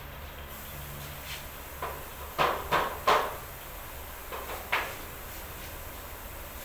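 A run of about six short knocks and clacks on the aluminium sliding-door frame being fitted, the three loudest in quick succession about two and a half to three seconds in.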